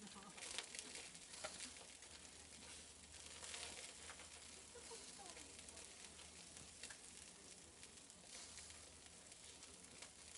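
Food sizzling faintly on a barbecue grill, a steady hiss with scattered small crackles.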